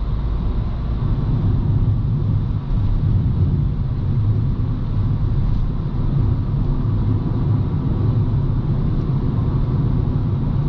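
Steady engine and road rumble heard inside the cabin of a Honda Civic cruising at highway speed.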